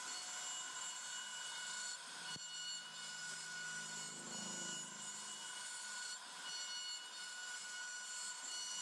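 CNC router spindle running with a steady high whine while its end-mill bit cuts a groove into a wooden door panel, with a hiss of cutting. A brief lower hum comes in about four seconds in.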